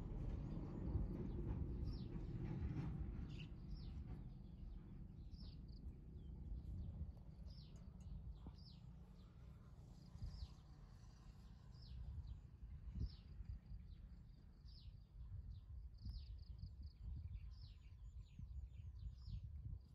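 Small birds chirping: many short chirps, each falling in pitch, repeating over and over, over a faint low rumble that eases after the first few seconds.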